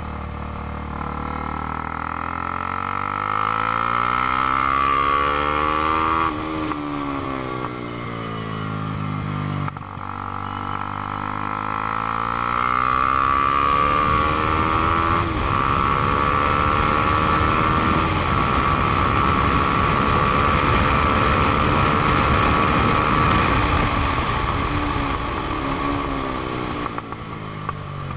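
KTM 390 Duke's single-cylinder engine through a Black Widow aftermarket exhaust, ridden hard on track. The revs climb for several seconds, drop and fall away as the bike slows, then climb again and hold high before falling near the end. Wind rush grows loud over the microphone at speed.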